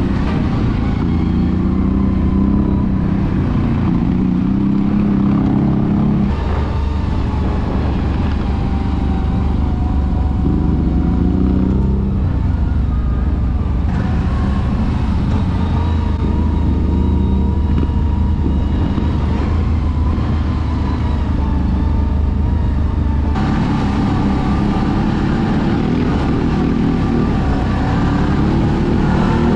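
CF Moto X10 ATV's V-twin engine running under way on a trail ride, its revs rising and falling.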